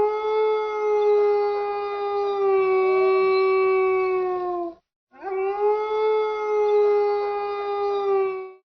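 Wolf howling: two long, steady howls, each rising slightly at the start and dipping at the end, the second beginning about five seconds in.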